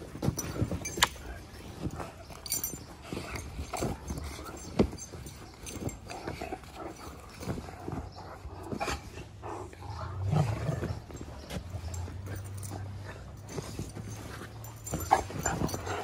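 Two Great Danes play-fighting: scuffling and knocks as they wrestle, with a low, drawn-out growl about ten seconds in.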